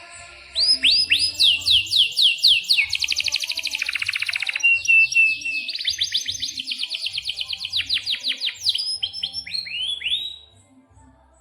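Domestic canary singing a long song of rapid, repeated down-slurred whistled notes, moving from one trill to the next at different speeds. It stops about ten seconds in.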